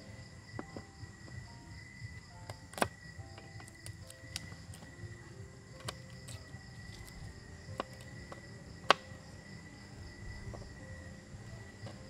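Knife tapping and cutting on a wooden cutting board while garlic and tomatoes are sliced: scattered sharp clicks, the loudest about three seconds in and near nine seconds. Behind it, a steady high insect chorus.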